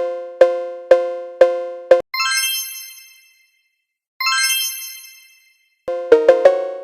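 Background music built on chime-like struck bell notes, about two a second. About two seconds in, a high shimmering chime flourish takes over and fades; a second flourish comes about four seconds in. A short silence follows, and near the end the struck notes return, quicker at first.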